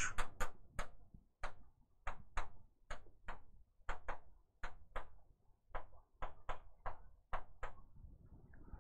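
An irregular run of light, sharp taps or clicks, about three a second, with short gaps between clusters, dying away near the end.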